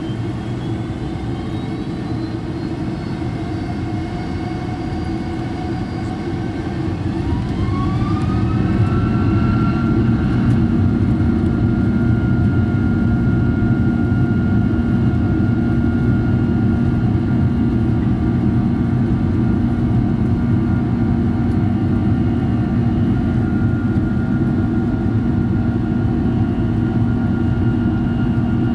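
Boeing 747-400 jet engines, Rolls-Royce RB211s, heard from inside the cabin as they spool up. A whine rises in pitch about seven seconds in and the noise grows louder, then holds as a steady high whine over a deep rumble.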